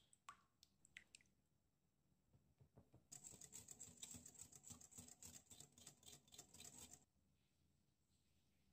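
A few light clicks of a utensil on a glass bowl, then about four seconds of rapid whisking: a small whisk clinking and swishing against the glass as it beats a melted-butter mixture.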